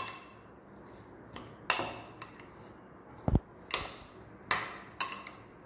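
Steel spoon mixing a chopped vegetable, paneer and cheese-spread filling in a cut-glass bowl, clinking against the glass about six times at uneven intervals, with one dull knock a little past halfway.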